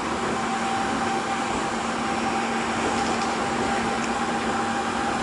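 Interior running noise of an Osaka Monorail 3000 series car at a steady speed: rubber-tyre and body rumble with a steady low hum and a steady higher whine from its Hitachi IGBT VVVF inverter drive.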